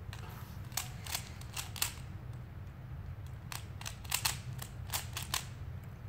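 Stickerless 3x3 speed cube turned quickly by hand: sharp plastic clicks as the layers snap round, in two quick flurries, the second starting about three and a half seconds in. A steady low hum runs underneath.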